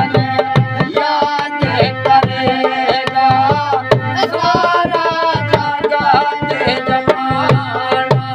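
Instrumental passage of Indian folk music: fast hand-drum strokes under a held melody line.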